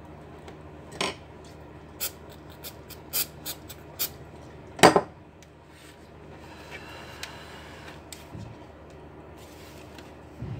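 A series of sharp clicks and knocks from small hard parts and tools being picked up and set down, the loudest about five seconds in. This is followed by quieter rubbing and a soft thump near the end.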